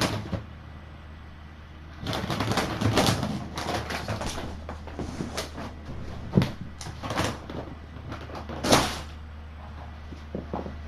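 Rustling and clattering of objects being handled and set down, with two sharper knocks later on, over a steady low hum.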